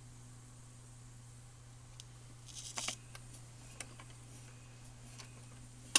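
1967 Magnavox record changer running through a change cycle on a stack of 45s: a steady low motor hum, a brief rustle with a few clicks about halfway through, and a sharp click at the end.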